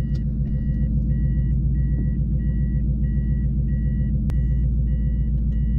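Mitsubishi Delica L400 van's warning beeper sounding a steady repeating beep, about one and a half beeps a second, over the low, even rumble of its swapped-in Toyota 1UZ-FE VVTi V8 heard from inside the cab. A single sharp click a little past four seconds in.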